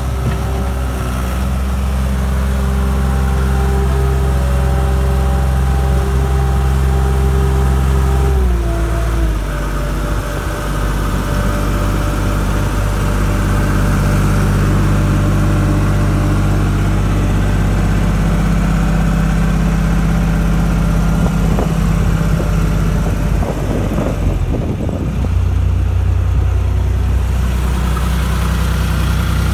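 John Deere 240 skid steer engine running steadily. About a third of the way in its pitch drops suddenly as the engine slows, and it shifts again a couple of times later.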